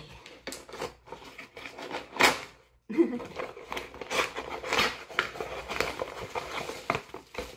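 Small cardboard box being opened by hand: flaps scraping and tearing, with a sharp rip about two seconds in, then a busy crinkling rustle of cardboard and packaging being handled.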